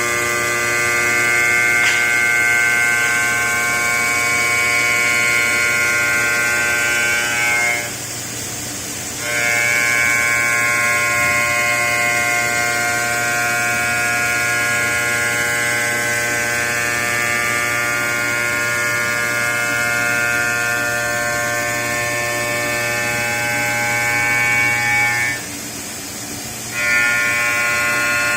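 ATC CNC stone machining centre running, its spindle giving a steady high-pitched whine made of many tones over a low hum. Twice the whine drops away for about a second and then returns.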